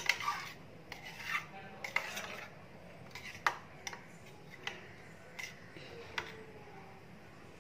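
Spoon stirring curd in a small stainless steel pot, scraping and clicking against the metal sides as a mustard-seed tempering is mixed in. The clicks are frequent for the first couple of seconds, then come only every second or so.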